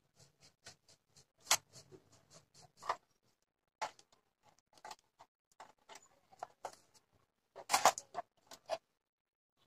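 Irregular small clicks, taps and rustles of hands and a pair of wire strippers working on wires and components inside an old stereo cassette player's chassis, with a louder cluster of sharp clicks about eight seconds in.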